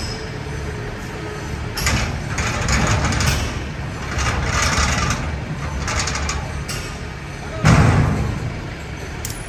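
Car-transporter truck idling with a steady low rumble, while its steel loading ramps are lowered with metal scraping and clanking. A heavy thump comes near the end.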